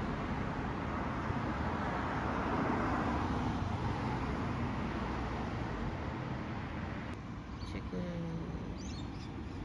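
Road traffic on a busy street: a steady wash of car engine and tyre noise, swelling as a vehicle passes about two to three seconds in. About seven seconds in it gives way to a quieter background with a few faint high chirps.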